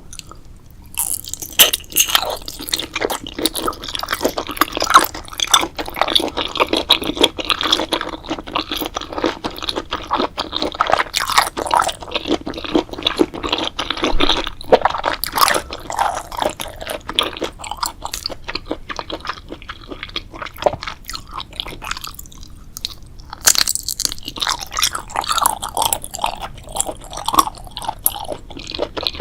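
A person chewing and biting crunchy food in a dense run of crisp crunches, starting about a second in. The crunching pauses briefly about three-quarters of the way through, then resumes.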